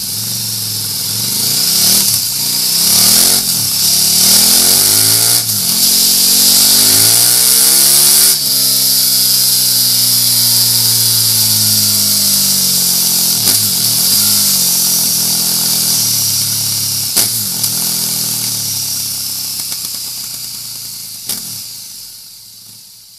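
KTM 1290 Super Duke GT's V-twin engine revving through a MIVV Suono slip-on exhaust, with a steady high hiss over it. It gives several quick throttle blips, then one long rev that climbs for a few seconds and sinks slowly back, then more blips, and fades out near the end.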